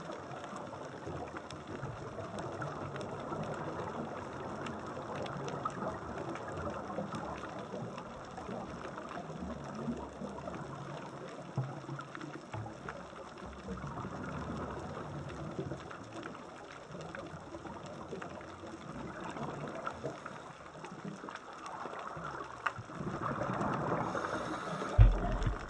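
Underwater ambience over a rocky reef: a steady hiss with scattered faint clicks. Near the end it grows louder as a scuba diver's exhaled bubbles come close, with a sharp knock just before the end.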